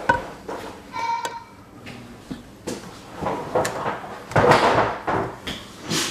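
Knocks and clatter of tools and fittings under a kitchen sink as a garbage disposal is worked on, with a short metallic ring about a second in and a rustling scrape a little after the middle.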